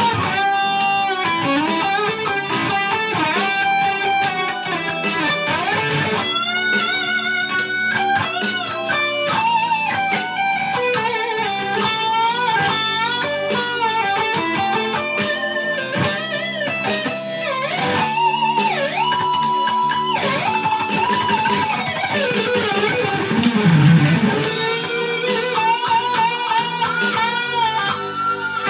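Electric guitar playing a fast shred-style lead solo, with rapid runs, bent notes and vibrato. A few seconds before the end, a note swoops down in pitch and back up.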